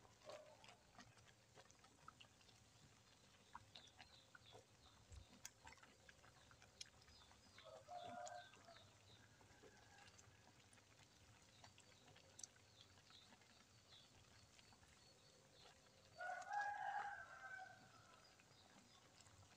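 Mostly near silence with faint scattered ticks, broken twice by a chicken calling in the background: a brief call about eight seconds in and a longer, louder one near the end.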